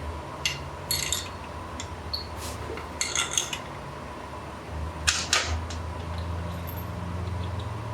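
Sharp metallic clicks and clinks of tools and engine parts being handled, in small clusters about half a second, one second, three seconds and five seconds in, over a low steady hum.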